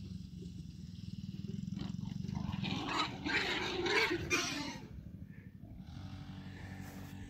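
Small dirt bike engines buzzing at a distance, with a louder rough outburst of some other kind from about three to four and a half seconds in.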